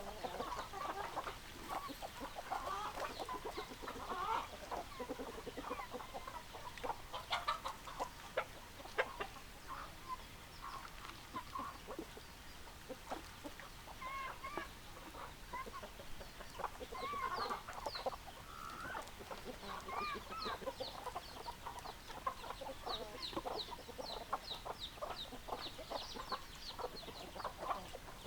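Chickens clucking and calling, with many short calls overlapping. In the second half, runs of rapid high chirps join in.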